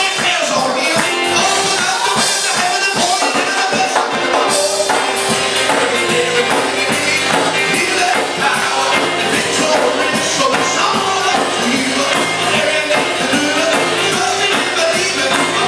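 Worship song played by a band with singing, with a steady beat.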